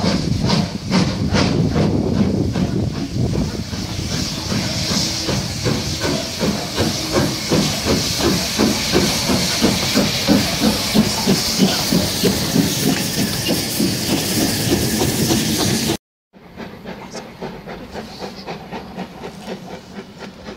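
Steam locomotive pulling away, its exhaust beats chuffing in a steady rhythm of roughly two to three a second over loud hissing steam. After a sudden cut about three-quarters of the way through, a fainter, more distant chuffing carries on.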